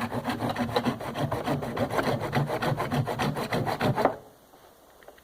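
A saw worked by hand in quick back-and-forth strokes, rasping steadily, then stopping about four seconds in.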